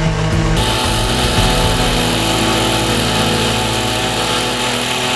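Small engine running steadily, with a sudden change in its sound about half a second in.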